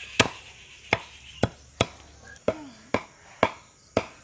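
Knife chopping food on a cutting board: about eight sharp strokes, unevenly spaced at roughly two a second.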